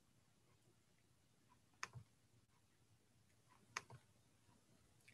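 Near silence: room tone, with two faint, sharp clicks about two seconds apart.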